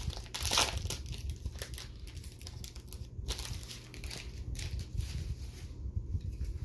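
Foil Yu-Gi-Oh! booster pack wrapper crinkling as it is handled and torn open, loudest in the first second and thinning out toward the end.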